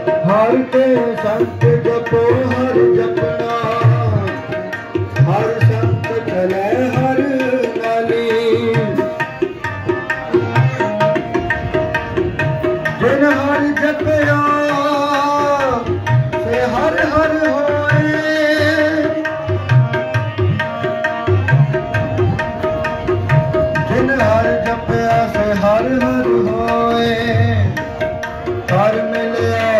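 Sikh devotional kirtan: a voice singing a melody to a steady tabla rhythm over a continuously held drone note.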